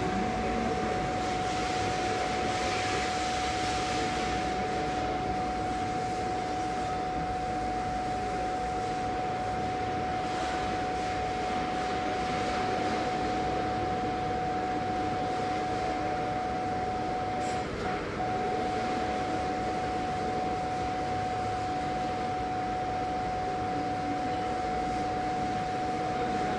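A Hyundai's rear parking-sensor buzzer giving one continuous, unbroken tone, the warning that an obstacle is very close behind the car in reverse, over steady workshop and idling-car background noise.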